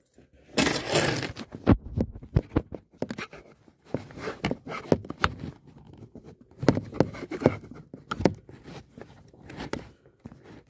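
Handling noise from a phone being fixed into a dashboard mount: irregular bursts of rustling and scraping with sharp clicks.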